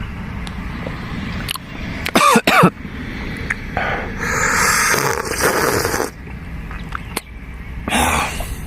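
A person slurping hot pigeon soup from a cup, three separate slurps, the middle one the longest at about two seconds.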